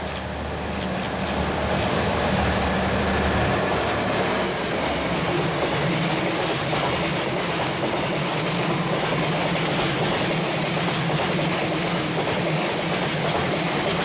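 Freight train rolling past close by, its wagons' wheels running on the rails. It builds over the first two seconds, then holds steady and loud.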